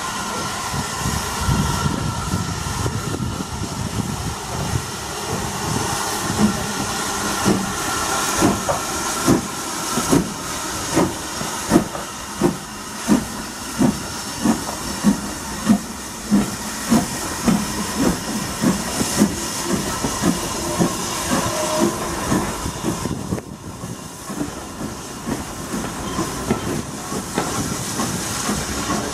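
BR Standard 4 2-6-4T steam tank locomotive working a passenger train, with a steady hiss of steam and its exhaust beating evenly at a little over one chuff a second. The beats fade near the end as it draws away.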